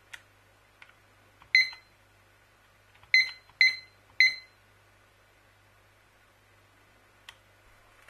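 Button presses on a Mudder digital kitchen timer: a couple of light plastic clicks, then four short, high-pitched beeps as keys are pressed, the middle two close together, and one more click near the end.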